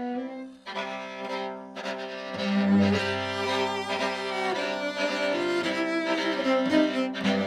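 String trio with violin and cello playing live, with bowed sustained notes. After a brief break in the sound about half a second in, the cello enters with strong low notes about two and a half seconds in.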